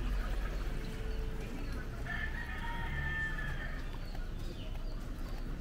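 A rooster crowing once: a single long call that starts about two seconds in and lasts nearly two seconds.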